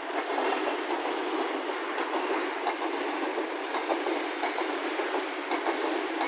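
Enclosed car-carrier freight wagons rolling past, their wheels clattering and clicking over the rail joints over a steady rushing noise.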